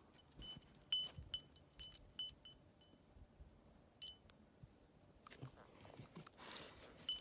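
A dog's metal chain collar and tag jingling faintly in scattered light clinks as the dog moves its head.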